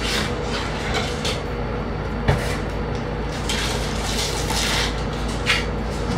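Handling of packaging: a clear plastic bag crinkling and a cardboard box rustling as it is slid off a French fry cutter, with a sharp click about two seconds in.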